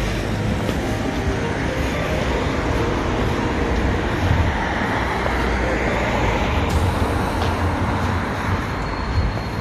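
Steady city street traffic noise, a continuous rumble of road vehicles with no break.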